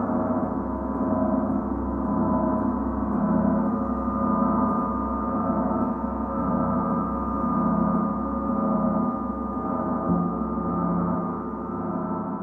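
Large Paiste gong played continuously, giving a dense, sustained wash of many ringing tones with a deep hum underneath, swelling and ebbing about once a second.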